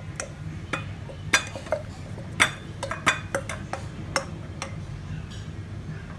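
A plastic rice paddle scraping and knocking against a stainless steel mixing bowl and a plate while rice salad is scooped out: an irregular string of sharp clicks and clinks, some ringing briefly.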